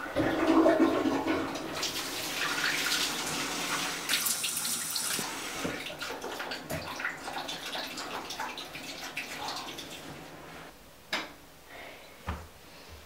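Water running, loudest about half a second in and slowly dying away over about ten seconds, followed by a couple of sharp clicks near the end.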